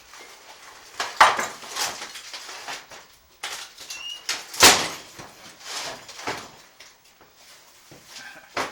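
Irregular scraping and knocking of wood being handled, with a short squeak about four seconds in and a sharp knock just before five seconds.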